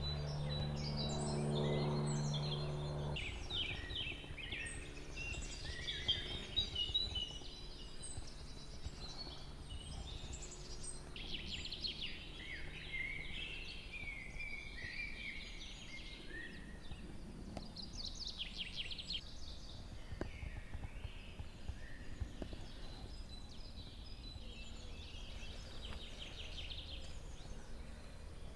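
Several songbirds singing in a spring woodland, overlapping phrases and calls. A low steady hum is heard in the first three seconds and cuts off suddenly.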